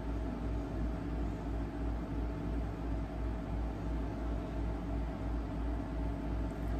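Steady low background hum with hiss and a slow, regular throb in the deep bass, about three pulses a second, like a running room appliance or ventilation unit.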